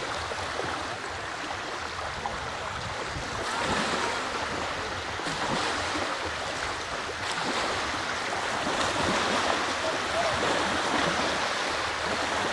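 A steady wash of small sea waves lapping and breaking in shallow water, with wind buffeting the microphone.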